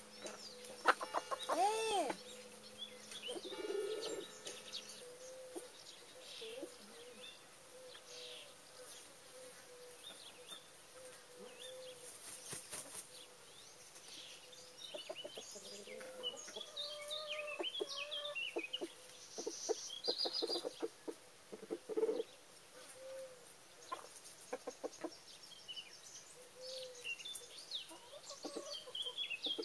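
Domestic hens clucking in short, scattered calls, with one louder, drawn-out squawk near the start.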